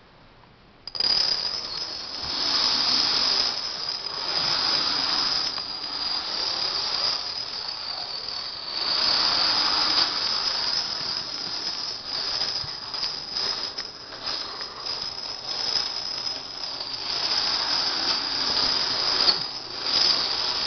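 A long chain of about 2,500 dominoes toppling on a wooden floor: a dense, continuous clatter that starts about a second in and swells and eases as wider blocks of dominoes go down.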